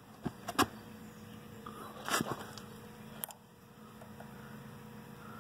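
Handling noise of hand tools and the held camera: a few sharp clicks and knocks, the loudest about half a second in, a short scraping cluster about two seconds in and one last click a second later, over a faint steady hum.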